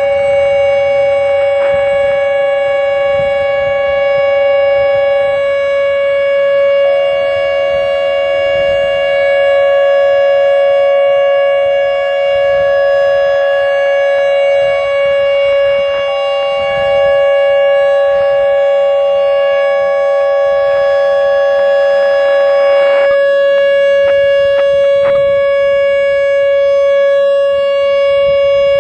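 Federal Signal Modulator 3012 electronic outdoor warning siren sounding its Alert signal: one loud, steady tone held at an unchanging pitch. Fainter steady tones at slightly higher pitches come and go beneath it.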